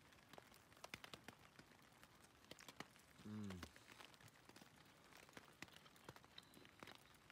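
Faint scattered ticks of rain falling on a tarp, with a short low 'mm' from a man's voice, falling slightly in pitch, a little over three seconds in.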